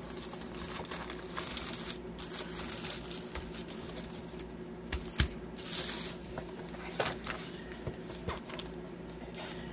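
Cardboard kit box and plastic packaging being handled: the box sliding open and plastic bags crinkling, with a few sharp clicks, the loudest about five seconds in, over a faint steady hum.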